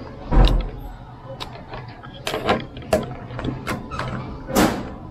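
Handling noise from a handheld digital clamp meter: a series of sharp plastic clicks and knocks as it is turned in the hand, with a dull thump about half a second in and a louder click near the end.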